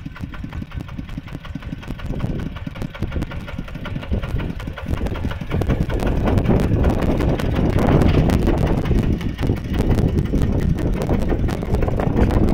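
Two-wheel walking tractor's single-cylinder diesel engine chugging steadily as it pulls a loaded trailer, getting louder about halfway through.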